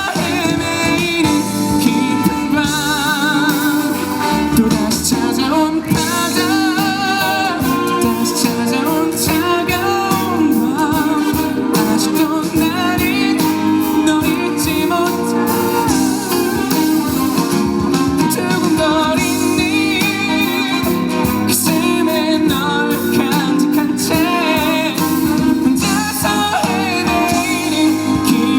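Live pop ballad performance: singing over a band with guitar, continuous and loud.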